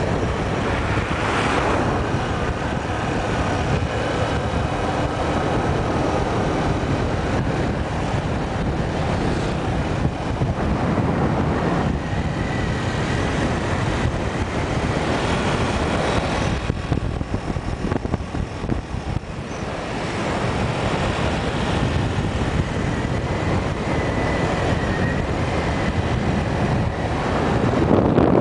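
Wind buffeting the microphone on a moving motorcycle, with the engine running underneath; it eases briefly a little past halfway.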